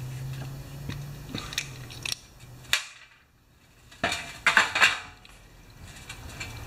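Small screwdriver clicking on a chainsaw carburetor's metal body as the fuel-pump cover screws are backed out, a few light ticks, then the cover and screws clattering into a metal parts tray in a loud burst of sharp clinks about four seconds in.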